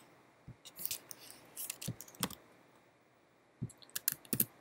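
Computer keyboard keys and mouse buttons clicking in short runs: a handful of clicks in the first couple of seconds, a pause, then a quick run of clicks near the end, as text is selected, copied and pasted.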